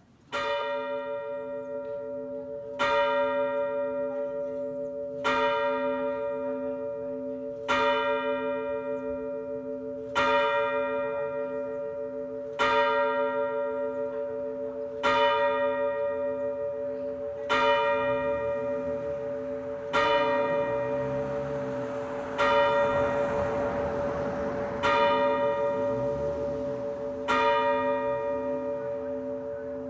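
Church tower clock bell striking twelve for noon: twelve single blows about two and a half seconds apart, each ringing on with a pulsing hum beneath the next stroke.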